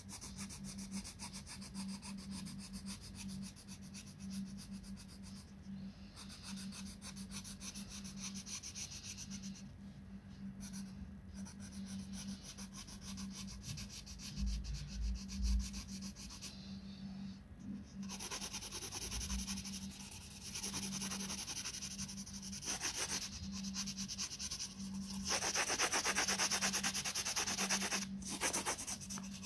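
Coloured pencil shading on paper: quick back-and-forth strokes scratching against the colouring-book page, in runs with short pauses, densest and loudest near the end.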